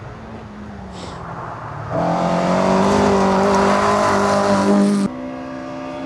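Historic rally car engines on a gravel stage: a quieter engine at first, then from about two seconds in a rally car passing close at high, steady revs, loud, cutting off suddenly about five seconds in, after which another car's engine is heard more quietly as it approaches.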